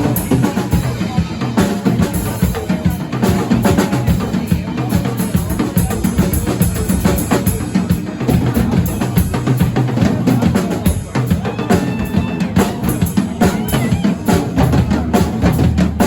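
Music with a busy drum-kit beat: bass drum and snare hits.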